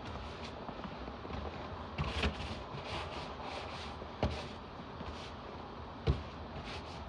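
Snow and ice crunching under short, repeated strokes, about two a second, with three heavier knocks, as snow and freezing-rain crust are worked on or around a vehicle.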